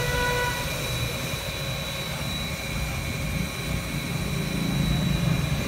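Inverter-driven pump motor running steadily, a low hum with a thin high whine held on one pitch. The hum swells a little about five seconds in.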